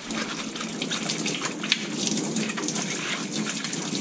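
Tap water running from a faucet and splashing into a stainless steel sink over milking-machine parts held under the stream as they are rinsed.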